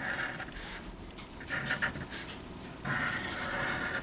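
Felt tip of a Sharpie fine-point marker drawing on paper: squeaky, scratchy strokes, a few short ones and a longer one near the end.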